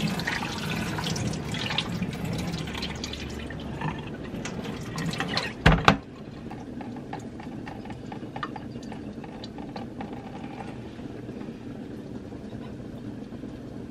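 Water splashing and draining as berries are rinsed in a plastic bowl in a stainless-steel sink, with a sharp knock about six seconds in. After that it is quieter, with faint scattered clicks and drips.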